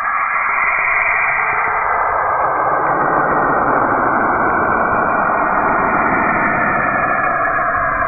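Spacecraft radio data from Saturn played as sound: a loud, steady rushing hiss like static between radio stations, with faint steady tones inside it. The hiss grows fuller and deeper about two seconds in.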